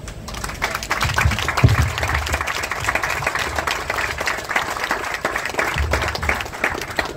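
A crowd applauding: dense clapping starts almost at once, holds steady and thins out near the end. A couple of low thumps sit underneath it in the first two seconds.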